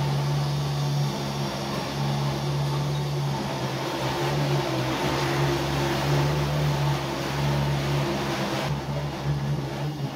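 Robot vacuum cleaner running as it cleans a rug: a steady low motor hum that wavers in strength, over an even whirring hiss.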